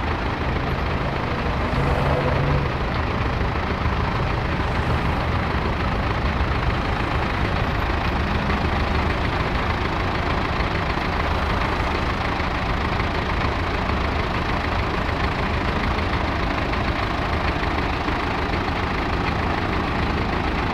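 KamAZ concrete mixer truck's diesel engine running steadily as the truck creeps forward in slow traffic, mixed with the noise of the surrounding street traffic.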